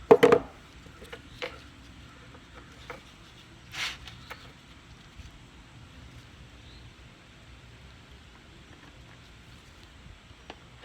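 Scattered light clicks and taps of small screws and carburetor parts being handled, with a sharper clatter right at the start and a brief scrape about four seconds in.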